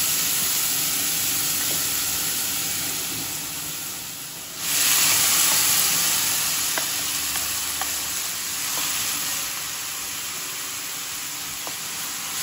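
Grated beetroot sizzling in hot ghee in a kadai: a loud frying hiss that slowly dies down, then flares up again about four and a half seconds in as the rest of the beetroot is tipped in, while a wooden spatula stirs it with a few light scrapes.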